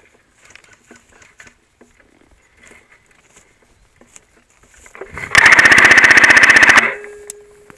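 Airsoft MG42 replica machine gun firing one rapid, evenly paced burst of about a second and a half, starting about five seconds in.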